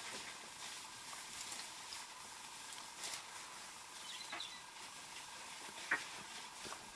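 Faint steady hiss with a few light scattered crackles and one sharper click about six seconds in.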